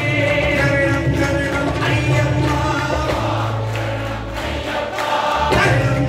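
Male voices singing an Ayyappa devotional bhajan, a lead singer with a chorus joining in, over tabla and low accompaniment.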